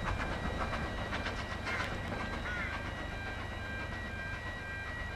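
Isle of Man Railway No. 12 Hutchinson, a narrow-gauge Beyer Peacock 2-4-0 tank engine, running past with its carriages under a steady low rumble. Wheel clicks over the rail joints thin out after about two seconds. A small bird chirps a couple of times.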